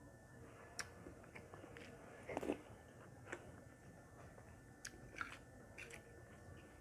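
Faint close-up eating sounds: soft chewing, with scattered light clicks of a metal spoon against the plate and soup bowl.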